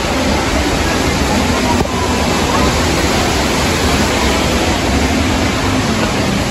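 Water rushing down the Reach Falls cascades, a loud, steady rush with no let-up.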